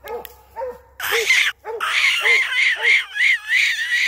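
Hunting hound barking treed: a few spaced barks, then from about a second in a fast chop of about three barks a second. This is the sign that the dog has its quarry up the tree.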